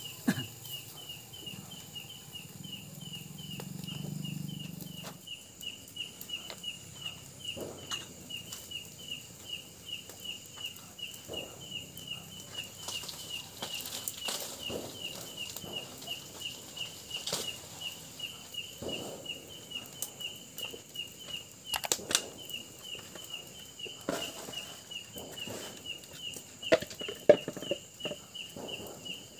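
Whooshing flaps of a plastic fan guard waved to fan a wood cooking fire, over a steady high chirping of insects pulsing about three times a second.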